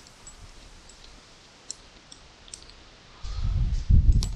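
Faint, scattered high clicks of a hand screwdriver turning a screw out of a truck-bed tie-down insert. Near the end a louder low rumble comes in, with one sharp click just before the end.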